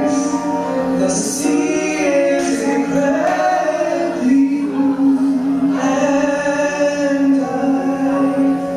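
A solo singer holds long, drawn-out notes over instrumental accompaniment, with short breaks between phrases.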